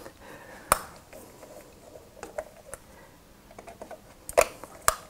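Small clicks and taps of a screwdriver working the terminal screws and wires of an old wall thermostat, with a sharp click under a second in and two more a little after four seconds.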